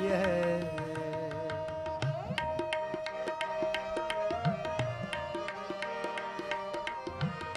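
Kirtan accompaniment: a sung line ends about a second in, then harmonium notes are held steady over regular tabla strokes.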